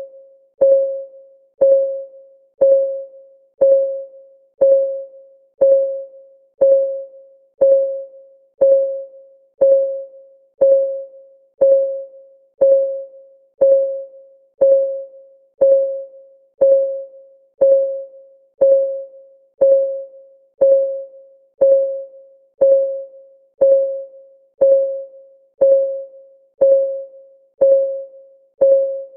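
A countdown timer's clock-ticking sound: a short, pitched tick about once a second, each one ringing briefly before it dies away.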